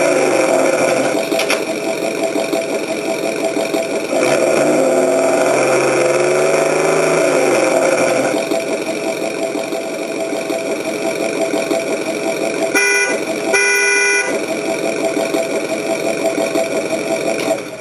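Simulated engine sound from a Tamiya MFC-02 multi-function control unit played through the 1/6-scale RC rock crawler's small speaker, running steadily and revving up and down. It is broken by two short horn blasts about two-thirds of the way through, and the engine sound stops right at the end.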